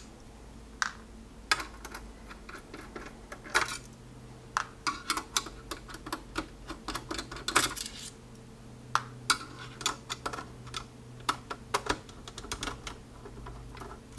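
Screwdriver backing out the small mounting screws of an all-in-one PC's power supply from its steel chassis: irregular light clicks and ticks of the bit in the screw heads and metal on metal, some in quick runs.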